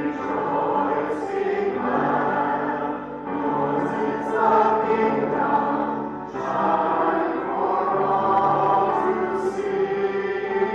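Choir singing a hymn.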